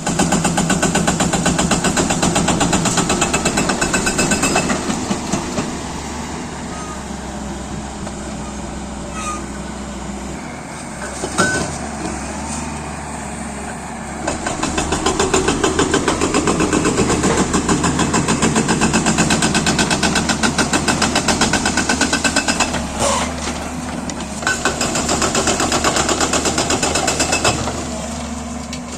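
Hydraulic breaker on a JCB 205 excavator hammering in rapid, evenly spaced blows, in three long bursts, with the excavator's diesel engine running steadily between them. A single sharp knock stands out near the middle.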